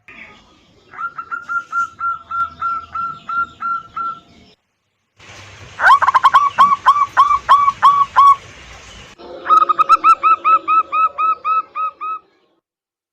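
Zebra doves (local perkutut) singing: three bouts of fast, repeated cooing notes, each about three to four seconds long, cut one after another with abrupt starts and stops.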